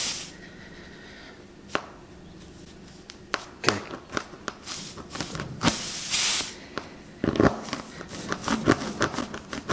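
Spiral rasp tool from a tyre plug kit being twisted and pushed in and out of a nail hole in a car tyre's tread to widen it. It makes irregular scraping clicks and rubbing, which come thicker near the end, with a short hiss about six seconds in.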